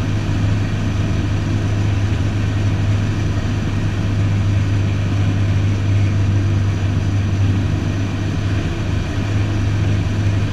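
Piston engine and propeller of a light single-engine aircraft in flight, heard inside the cabin as a steady low drone that holds unchanged.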